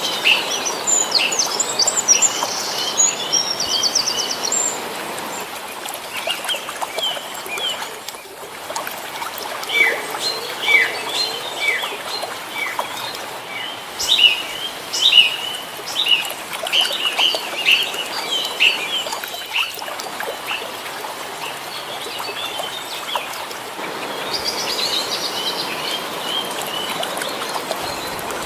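Many small birds chirping and calling together, with quick downward-sliding calls and a couple of fast trills, over a steady outdoor hiss.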